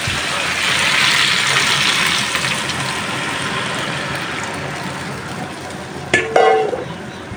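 Water poured from a steel bowl into a hot frying pan of fish and tomato curry, hissing and sizzling as it hits the pan, the sizzle swelling at first and then slowly dying down to a simmer. A brief louder sound about six seconds in.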